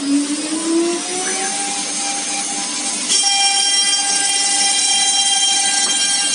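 Spindle motor of a small 6090 CNC router spinning up with a rising whine, then running at speed with a steady high whine. About three seconds in it gets louder and more shrill, with many high tones.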